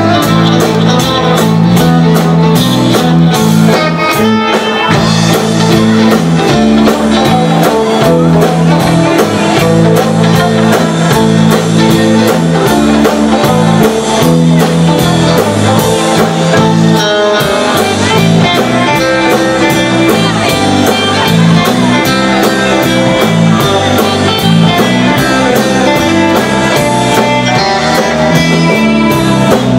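Live rautalanka band, Finnish instrumental guitar music: a twangy electric lead guitar over bass and drums, with a steady beat.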